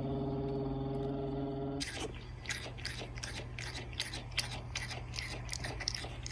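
Domestic cat chewing close to the microphone: irregular sharp mouth clicks, several a second, starting about two seconds in. Before that, a low, steady drawn-out tone.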